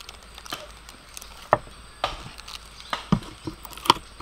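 Plastic-gloved hand mixing sliced lemongrass and lime leaves in a stainless steel bowl: faint rustling with a few sharp clicks and knocks against the bowl.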